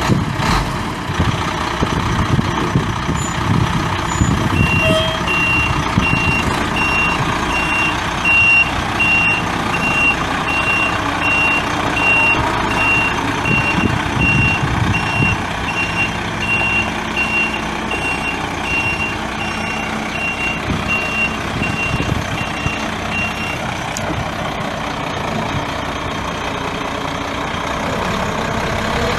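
A 1996 Ford F8000 bucket truck's Cummins ISC 8.3-litre inline-six turbo diesel is running. Its backup alarm beeps at an even pace from about five seconds in until about twenty-four seconds in, the sign that the truck is in reverse.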